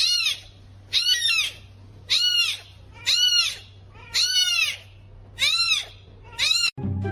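A kitten mewing over and over: about seven short, high calls roughly a second apart, each rising and then falling in pitch.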